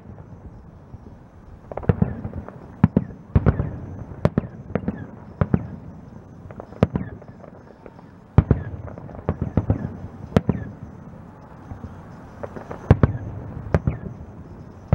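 Aerial fireworks shells bursting: sharp bangs in irregular clusters, often several within a second, with a low rumble carrying on between them.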